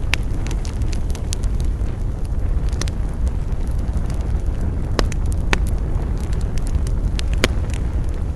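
Campfire of burning wood crackling: a steady low rumble under irregular sharp pops and snaps, with a few louder pops about halfway through and near the end.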